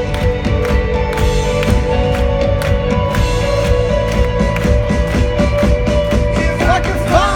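Rock band playing live in an instrumental passage: drums beat a steady rhythm under held guitar and keyboard tones. Right at the end the drums and bass drop out.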